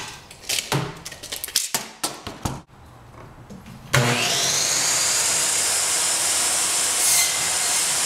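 Wooden board knocked and slid into place on a Ryobi miter saw, then the saw's motor starts about four seconds in with a rising whine and runs steadily at full speed. Near the end the blade is lowered into a 1x2 board to cut it.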